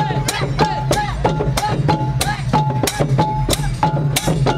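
Khmer chhay-yam procession music: long drums and other percussion beating a steady rhythm of about three sharp strikes a second, with a short high note repeated over the beat.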